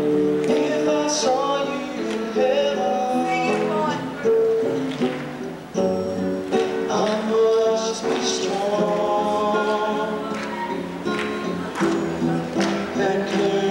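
Instrumental introduction of a song, the accompaniment music playing while the singer waits to come in.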